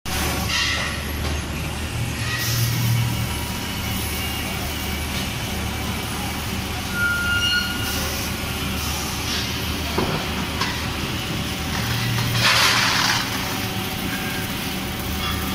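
Automatic double-head circumferential welding machine for LPG cylinders working: a steady machine hum, with bursts of compressed-air hiss about two seconds in and again about twelve seconds in, and a sharp click about ten seconds in.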